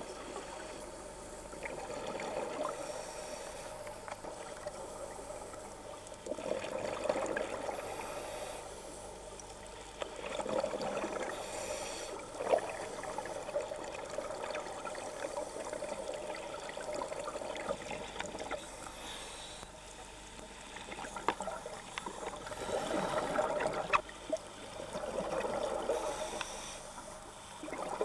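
Scuba divers breathing underwater through demand regulators: gurgling bursts of exhaled bubbles every few seconds, with a quieter stretch midway.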